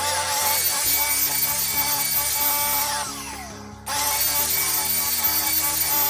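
Deerma bed vacuum cleaner's motor switched on and running loud with a high whine, winding down about three seconds in, then switched on again just under four seconds in and running until it starts to wind down near the end.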